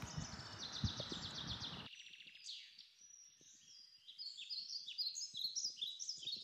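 Songbirds singing: a fast repeated trill, then a run of varied high chirps. A low outdoor background noise under them cuts off abruptly about two seconds in.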